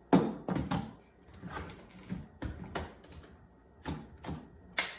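Plastic attachments of a Roidmi X30 Pro cordless vacuum being fitted together: a string of clicks and knocks as the parts are handled and snap into place, with a sharp click at the start and another near the end.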